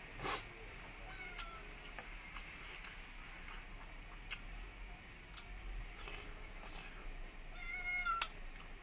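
A person eating with the hand, with small wet clicks and smacks of chewing and a loud smack about a third of a second in. A short, high-pitched animal call sounds faintly about a second and a half in and more clearly near the end.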